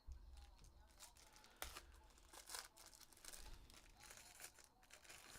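Faint crinkling and tearing of a trading-card pack wrapper, with a scatter of short rustles and clicks as the cards are handled.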